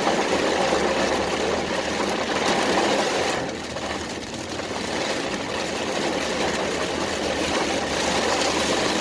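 Car driving slowly in the rain, heard from inside the cabin: a 2003 Honda Accord V6 engine running under the steady noise of rain and wet tyres, dipping briefly in level a little past the middle.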